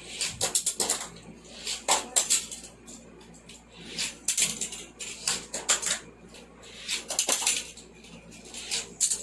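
Die-cast Hot Wheels cars and plastic track pieces clattering and clicking in several short bursts a second or two apart, as the cars are sent down and handled on the track.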